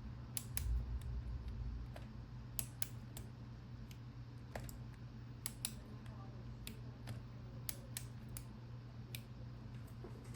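Master combination lock's dials being turned by hand, giving sharp, irregular clicks as the lock is worked and felt for its gates. A low steady hum runs underneath.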